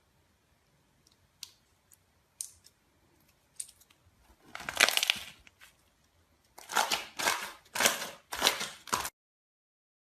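Hands working slime: a few scattered sharp pops, then crackly squishing bursts, one long one and then four in quick succession, before the sound cuts off abruptly.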